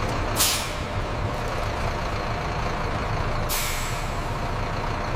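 Bus engine running steadily, with two short air-brake hisses, about half a second in and again about three and a half seconds in.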